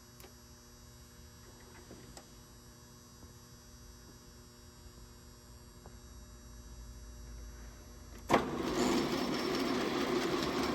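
Faint electrical hum, then about eight seconds in a sharp click as the ENCO 12" x 24" engine lathe is switched on and starts running loudly.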